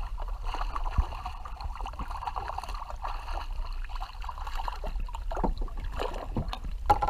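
A hooked red drum thrashing at the surface beside a kayak, water splashing and sloshing against the hull, with a single knock about a second in.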